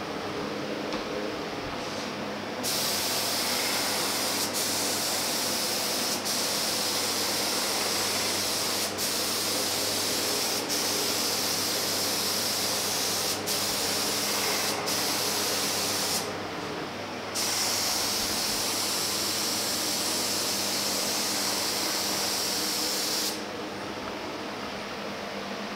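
Gravity-feed compressed-air spray gun hissing as it lays etching primer onto bare sandblasted steel in long passes, with short breaks in the spray every second or two between strokes. It starts about two seconds in, stops for about a second midway, and stops near the end, over a steady low hum.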